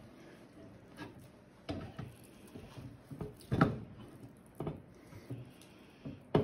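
Soft knocks and taps as halves of a smoked pork slab are handled and set down on a metal wire rack, about seven in all, the loudest about three and a half seconds in.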